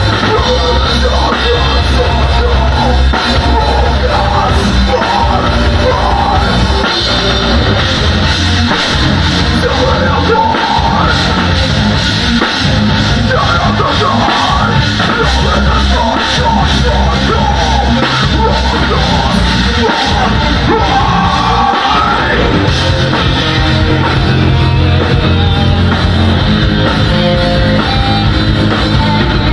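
Metalcore band playing live: distorted guitars, bass and a pounding drum kit at full volume, with harsh yelled vocals over the top.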